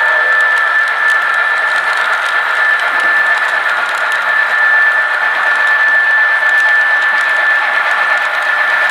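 Model train running on the layout: a steady small-motor whine with faint ticking from the wheels on the track.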